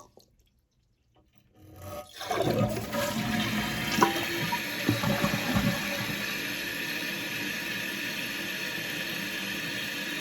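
Toilet flushing, its newly replaced flapper on test: water rushes through the bowl starting about two seconds in, with a few knocks, then settles into the steady hiss of the tank refilling.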